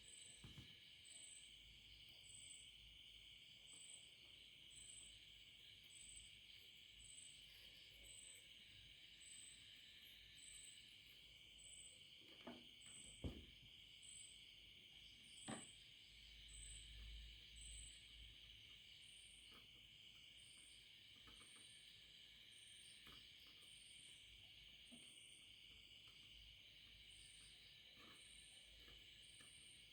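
Near silence: a faint steady hiss with a faint high pulse repeating about once a second, and a few soft clicks about halfway through.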